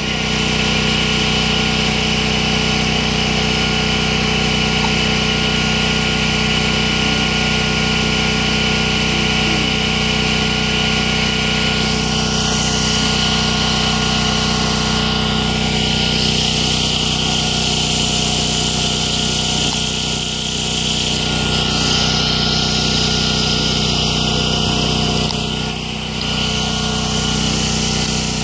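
Small engine running steadily at a constant speed, an even hum that does not change.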